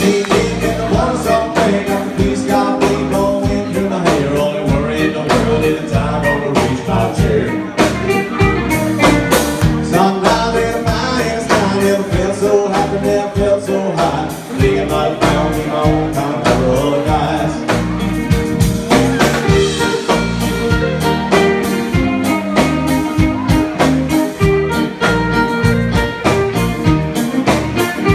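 Live band playing amplified music through PA speakers, with a singer, guitars and a steady drum beat.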